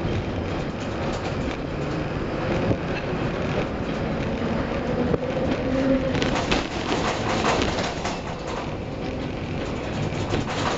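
Ship-to-shore container gantry crane's trolley and hoist machinery running, heard from up on the crane, as the empty spreader is lifted off the ship and carried toward the quay. A steady mechanical rumble with rattling and clicking, busier about six seconds in, with a faint whine above it.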